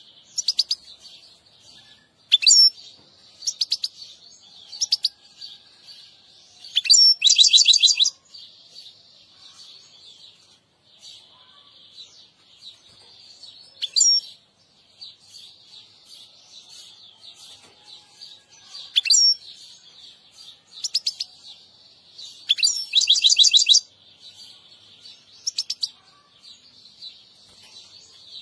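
European goldfinch singing: a continuous high twittering song broken by short sharp notes, with two loud, rapid trilling passages, about seven seconds in and again near the end.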